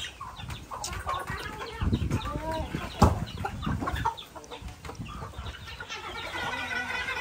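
Chickens clucking around the feeding dogs, with feed bowls clattering and a sharp knock about three seconds in.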